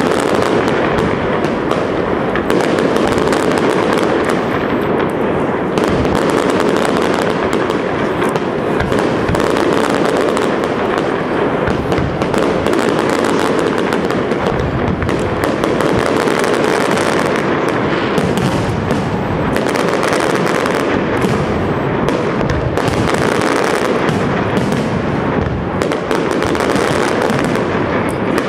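Castillo fireworks display firing a dense, continuous barrage of aerial shell bursts and crackle, many reports overlapping with no pause.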